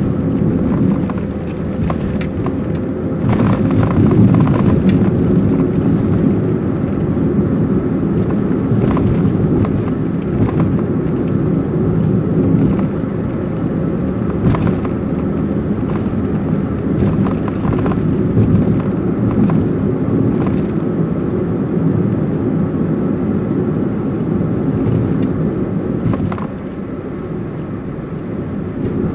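Vehicle driving on a city street: steady engine and road rumble, with scattered short knocks. It gets a little quieter near the end.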